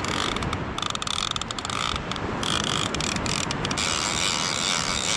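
Fishing reel being cranked in steadily, its gears giving a fast, continuous clicking.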